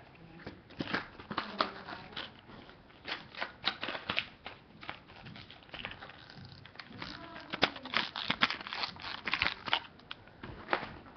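Clear plastic lure packaging crinkling and rustling as it is handled, with many small irregular clicks.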